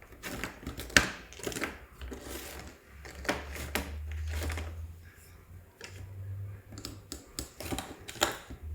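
Knife tapping and scraping on a plate while prising off cut pieces of set ginger-jaggery candy: an irregular series of sharp clicks and knocks. A low hum runs under the clicks for a few seconds in the middle.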